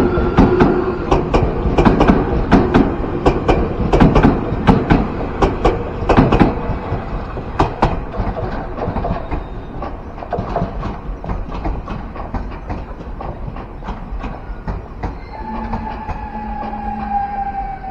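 Keio Inokashira Line electric train running past, its wheels clacking over the rail joints, loud at first and fading as it moves away. Near the end a whine falls in pitch.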